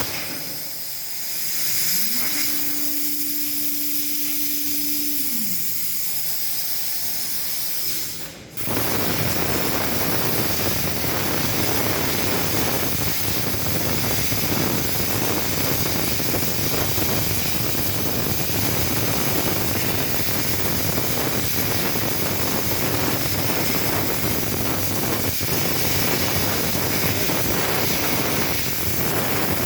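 CNC plasma cutting machine: a loud, steady hiss of the plasma torch. For the first several seconds there is a quieter hiss, with a motor whine that rises, holds for about three seconds and falls. After a sharp break about eight seconds in, the loud hiss runs on evenly.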